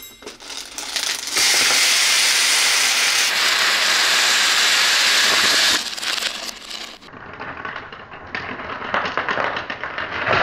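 Small plastic beads clicking and clattering as they spill from a toy garage when its red plastic door is pushed open. From about one and a half to six seconds in, a loud steady rushing hiss covers the clicks.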